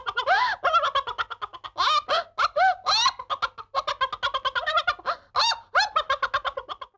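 Bird-like calls in a rapid series, several short pitched calls a second with rising-and-falling pitch, stopping abruptly near the end.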